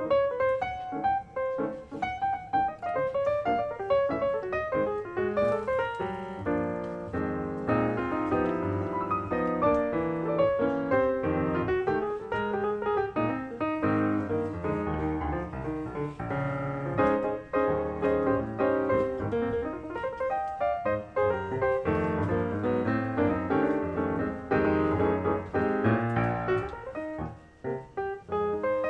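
Background piano music: a continuous instrumental piece of many quick notes.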